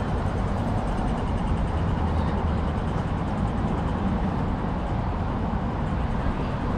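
Steady low rumble of city street traffic, with no single vehicle or event standing out.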